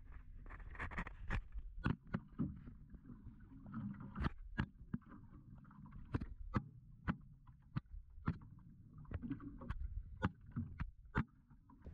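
Small boat rocking at rest: a faint low rumble of water against the hull, with irregular sharp knocks and taps on the deck, about one or two a second.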